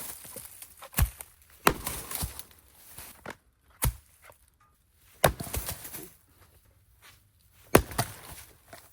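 Firewood being split by hand: about six sharp, heavy blows of a splitting blade into wooden rounds, spaced unevenly from under a second to a couple of seconds apart.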